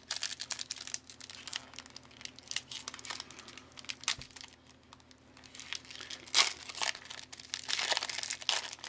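Foil-lined trading-card pack crinkling and tearing as it is pulled open by hand, in irregular crackles that come thicker and louder in the last few seconds.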